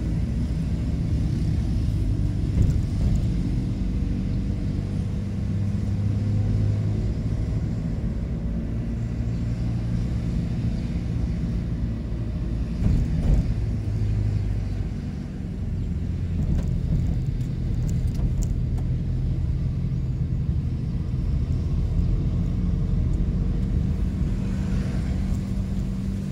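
Car engine running and tyres rumbling on the road, heard from inside the cabin as a steady low drone, with a couple of brief louder bumps.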